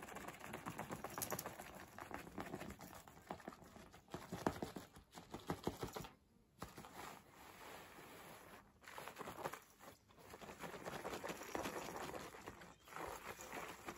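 A floor cushion and a cat teaser being slid and dragged over tatami matting: a scratchy rustle of cloth on woven straw, in several runs broken by short pauses.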